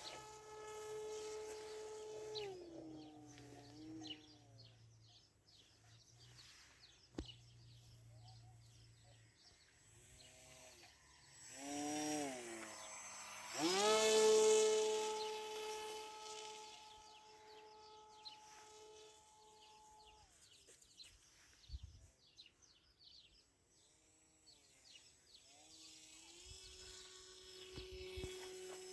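Whine of a small RC plane's A2212 brushless motor spinning an 8x4 propeller, its pitch dropping and rising as the throttle is cut and opened again. It stops for several seconds at a time, then comes back in short blips and longer steady runs, loudest about halfway through.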